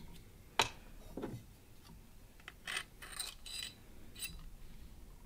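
A sharp click, then a duller knock, then a run of light metallic clinks and scrapes around the middle and one more clink near the end: small metal handle parts being handled and fitted onto a knife's tang during the epoxy glue-up of the handle.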